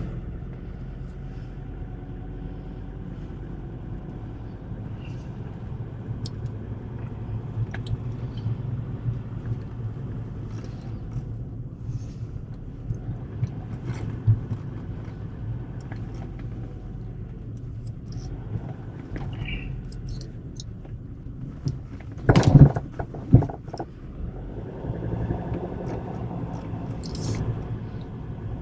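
Steady low engine and road rumble inside a moving car's cabin, with small rattles and clicks, and a sudden loud knock about three-quarters of the way through.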